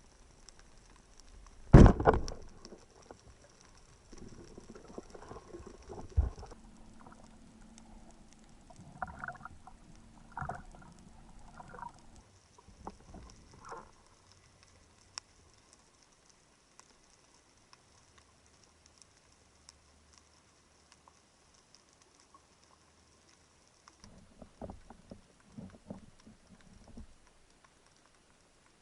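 Underwater sounds picked up by a diver's action camera. A single loud, sharp knock comes about two seconds in, then another knock and scattered clicks and rattles. After a quiet stretch, a few softer knocks come near the end.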